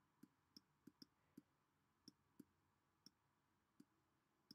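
Faint, irregularly spaced clicks of a stylus nib tapping a pen tablet during handwriting, about ten over four and a half seconds.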